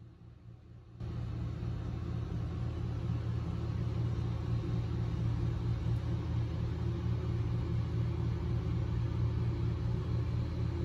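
A steady, low engine drone that starts suddenly about a second in and holds on without change.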